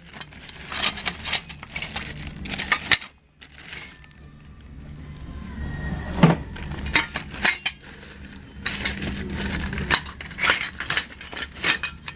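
Small hard ceiling-fan parts and hardware clinking and clattering irregularly as they are handled and sorted through in a bin, over a steady low hum.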